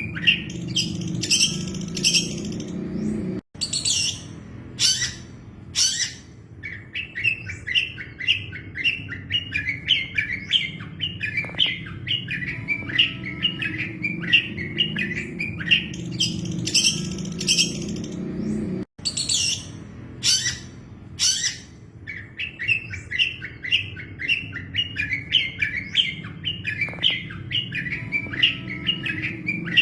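Long-tailed shrike (cendet) singing: fast runs of short chattering notes broken by sharp, higher calls, over a low steady hum. The same song passage plays twice, each time after a brief cut-out, as in a looped recording.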